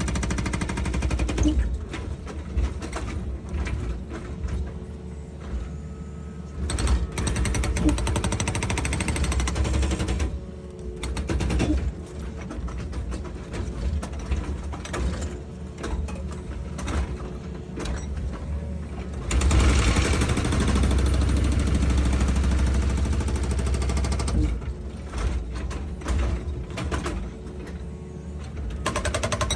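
Excavator's diesel engine running under load while it works, with repeated knocks and clatter; the sound grows louder for a few seconds about two-thirds of the way in.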